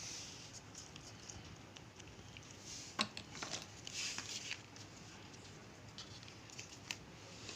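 Paper cutouts being handled: faint rustling and a few soft taps, the loudest about three seconds in.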